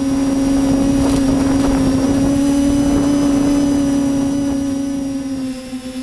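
A steady machine drone holding one pitch, with a layer of rushing noise over it, dipping briefly near the end.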